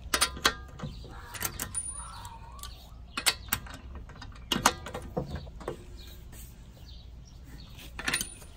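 Metal clinks and knocks of a socket and breaker bar being fitted onto and worked against the lug nuts of a steel wheel, several sharp strikes scattered irregularly, over a steady low background rumble.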